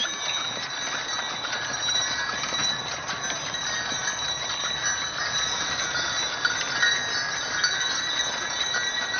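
Brass sleigh bells on a team of Percheron draft horses' harness jingling steadily as the horses pull, ringing at several held pitches at once.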